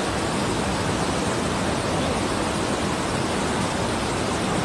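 A steady, even rushing noise with no pitch or rhythm to it, the outdoor sound of the clip.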